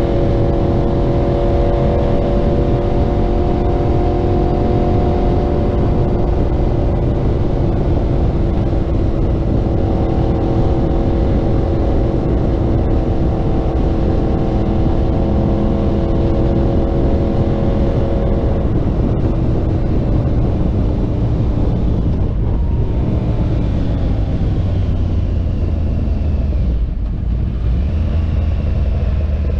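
Yamaha R1's inline-four engine through a Graves aftermarket exhaust, running at steady cruising revs, with wind noise on the onboard camera. About two-thirds of the way through the engine note falls in pitch and settles into a lower rumble as the bike slows.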